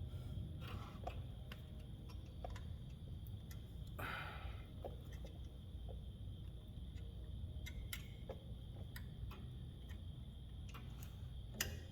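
Faint, scattered metallic clicks and a short scrape of a small pry bar and brake-shoe spring being worked on drum-brake hardware, levering the spring up to hook it into its hole, over a steady low hum.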